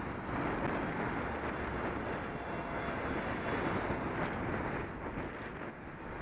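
Steady road-traffic noise heard from a cyclist's helmet camera: the low rumble of a bus, vans and a lorry close alongside, mixed with wind rushing over the microphone.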